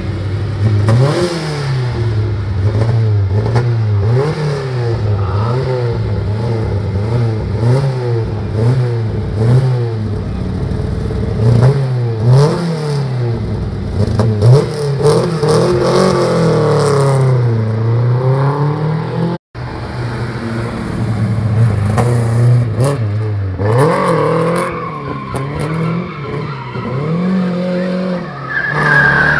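Lada saloon's four-cylinder engine revving up and down over and over, its pitch rising and falling about every second or two, as the car is driven hard round a tight roundabout.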